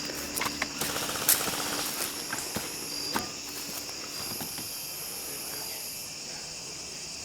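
Crickets chirring steadily, with a few sharp clicks in the first few seconds, the loudest about a second in.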